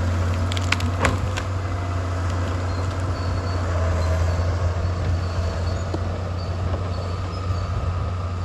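Heavy equipment diesel engine running steadily with a deep, even drone, with a couple of sharp cracks about a second in.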